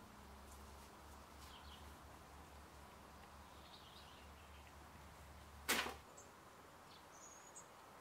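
Faint outdoor ambience with a few soft, high chirps and a low steady hum, broken about six seconds in by one brief, loud swish.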